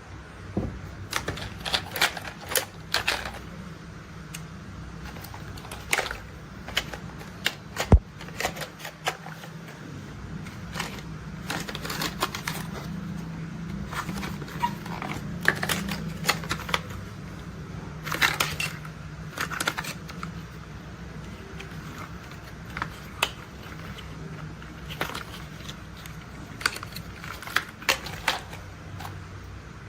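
Plastic toy construction vehicles being handled and tapped: irregular sharp clicks and knocks, the loudest about eight seconds in, over a low steady hum.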